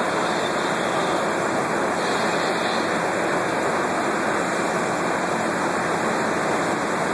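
Steady, even rushing background noise of an underground subway station concourse, with nothing standing out from it.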